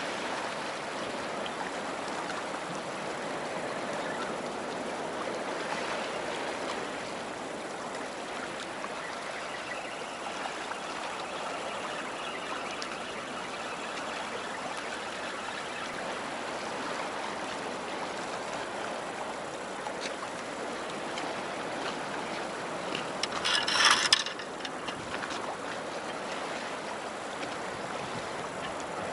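Steady wash of seawater lapping and trickling at the harbour edge. Near the end there is one short, louder rushing burst.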